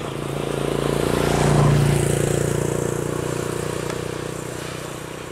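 An engine running steadily, swelling to its loudest about a second and a half in and then slowly fading away.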